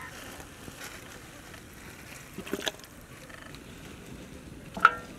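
Whole marinated chickens being handled and dropped into a large aluminium cooking pot: a few soft wet knocks, then a sharp knock near the end with a brief metallic ring from the pot.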